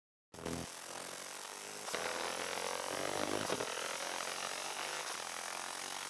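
Laser engraver burning a design into the steel hammer head: a steady buzzing, crackling hiss that starts a moment in after a brief gap and grows a little louder about two seconds in.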